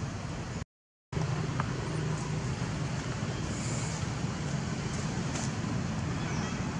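Steady low outdoor background rumble, like distant traffic, broken by a split-second dropout to silence just under a second in.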